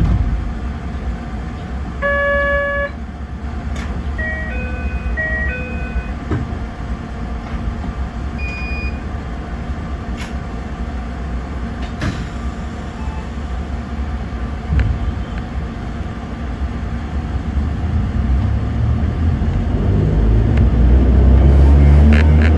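Narrow-gauge electric train standing at a station, heard from the cab. A short electronic chime melody plays over a steady low hum, with one longer tone about two seconds in. Near the end the traction motors rise in pitch as the train pulls away.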